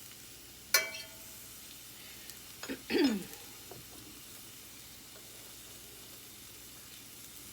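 Mushrooms sizzling steadily in a frying pan with a little peanut oil. A sharp ringing clink comes about a second in, and a short squeak falling in pitch about three seconds in, as the pan's contents are stirred.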